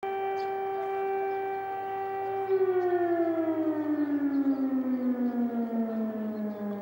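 Air-raid warning siren sounding a steady tone, then about two and a half seconds in starting to wind down, its pitch falling slowly while the level wavers. It signals an air-raid alert.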